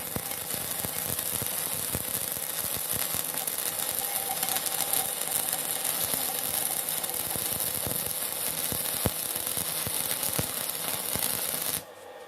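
Electric arc welding: a steady, loud crackle and sizzle of the arc with irregular sharp pops, cutting off suddenly near the end as the arc is broken.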